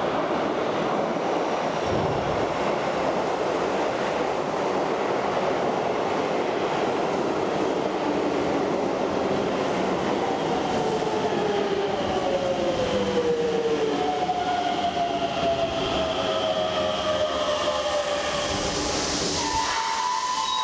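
Hokuso Railway 7300 series electric commuter train arriving in an underground station: steady rumble of wheels on rail, then several whining tones from the train that fall in pitch as it brakes, and a short hiss near the end as it comes to a stop.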